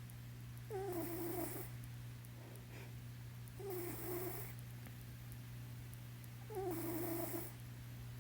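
Sleeping domestic cat snore-purring: three drawn-out snoring breaths about three seconds apart, over a steady low hum.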